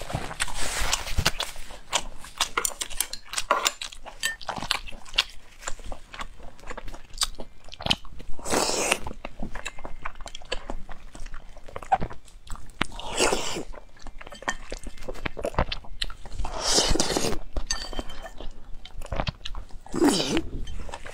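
A person eating close to the microphone: wet chewing with many small clicks and smacks, broken by four long slurps of noodles spread through.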